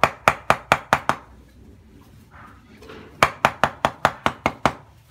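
Wooden handle being driven onto the tang of a Japanese knife with quick sharp wooden knocks, in two runs of about five knocks a second with a pause of about two seconds between them.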